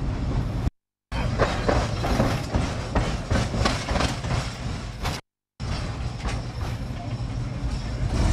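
Tram running along the track, heard from on board: a steady low rumble with rattling and clicking of the wheels over the rails, loudest in the middle. The sound cuts out completely twice for a moment, about a second in and about five seconds in.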